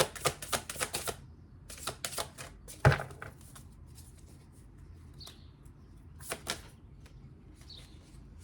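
Tarot deck being shuffled by hand: a quick run of card slaps that stops about a second in, then a few scattered card taps and one sharper knock about three seconds in.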